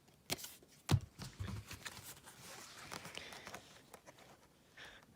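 Trading cards being handled: two light taps, then a couple of seconds of soft rustling with small clicks.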